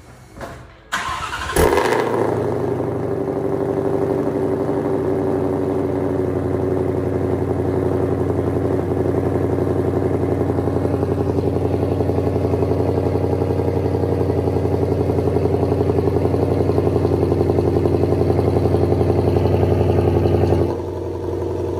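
2020 Shelby GT500's supercharged 5.2-litre V8 cranking briefly and firing up with a loud flare of revs. It then settles into a steady idle through a catless 3-inch stainless X-pipe exhaust. The idle gets noticeably quieter about a second before the end.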